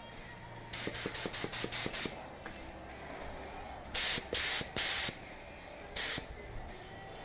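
Compressed-air paint spray gun hissing in bursts as its trigger is pulled. First comes a quick run of about seven short bursts, each starting with a click. About halfway through come three longer, louder bursts, and one more near the end.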